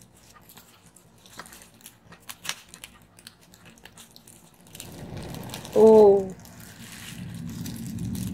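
Cooked crab being pulled apart by hand in plastic gloves: sparse small cracks of shell and crinkles of the gloves. About six seconds in comes a brief hummed vocal note, the loudest sound. A low rumble rises through the second half.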